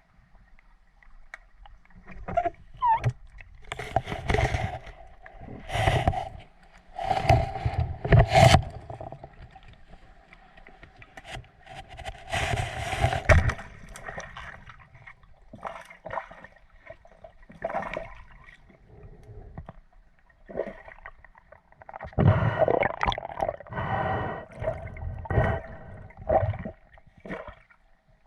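Water sloshing and gurgling in uneven bursts every second or two, over a faint steady hum.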